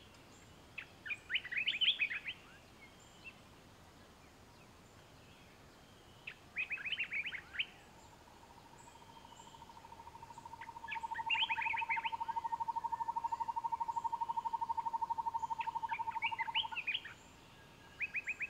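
Songbirds singing outdoors: short, quick phrases of high notes repeat every few seconds. Midway, a lower, even trill swells in and runs for about six seconds before stopping abruptly.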